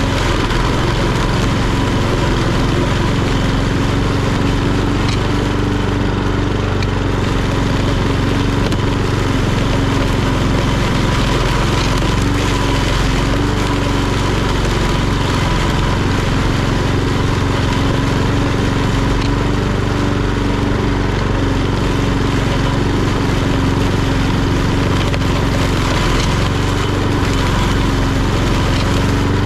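Etesia Pro46 walk-behind lawnmower, its Honda GCVx170 single-cylinder four-stroke petrol engine running steadily at constant speed while mowing.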